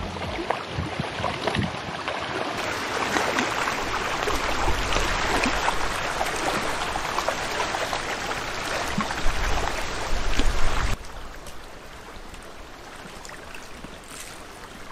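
Small wind-driven lake waves lapping and washing against a stony shoreline, a steady rushing splash. About eleven seconds in it drops abruptly to a quieter lapping.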